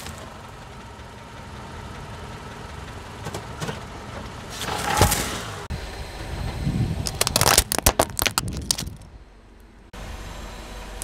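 A car rolling slowly with its engine running, a sharp crack about halfway through, then a run of crackling and crunching as a tyre crushes something brittle.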